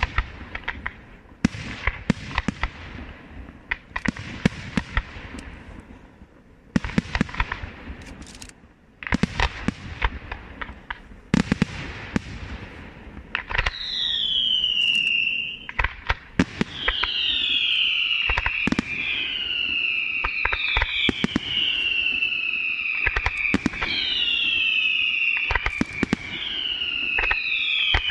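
Luigi Di Matteo Fireworks aerial display: sharp bangs and crackling shell bursts for the first half. From about halfway, a string of overlapping falling whistles, each lasting a second or two, sounds among continued bangs.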